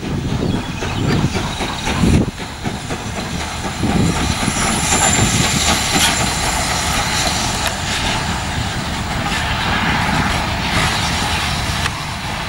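A steam locomotive hauling a train of coaches past, its wheels running on the rails, with a little steam hiss.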